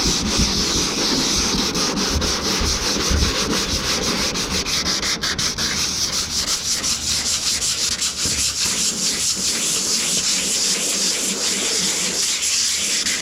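Sandpaper rubbed back and forth over the paint of a Toyota Corolla hood, one person sanding by hand and another with a brick: a steady scraping hiss of quick strokes that cuts off abruptly at the end.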